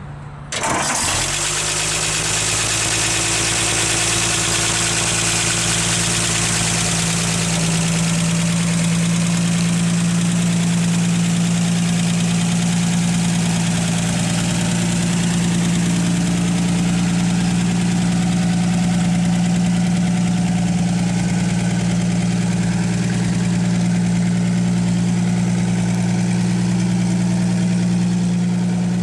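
1949 Ford F5's flathead six-cylinder engine catches about half a second in and settles into a steady idle.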